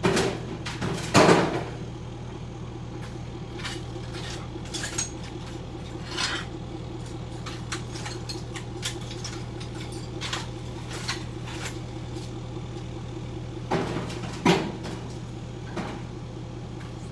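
Loose pieces of broken tile clinking and clattering now and then, loudest about a second in and twice more near the end, over a steady low machine hum. No jackhammer blows are heard.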